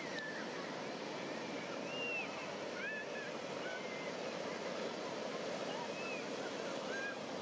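Steady beach ambience of surf wash, with faint short high chirps or voices scattered through it.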